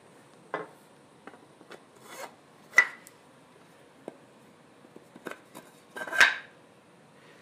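A metal rod scraping and sliding through drilled holes in wooden boards as it is pushed through several of them to test whether the holes line up, with small knocks of wood on wood. Short scrapes and clicks come and go, the two loudest about three seconds in and near the end.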